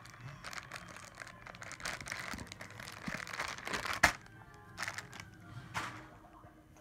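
Crinkling and rustling of something being handled, full of small clicks, with one sharp click about four seconds in and two more after it; music plays faintly in the background.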